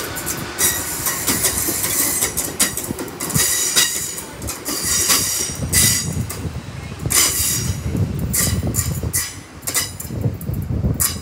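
Great Western Railway Hitachi Intercity Express Train moving out along the platform and away round the curve. Its wheels click repeatedly over the rail joints, over a steady rumble, with a high wheel squeal on the curve.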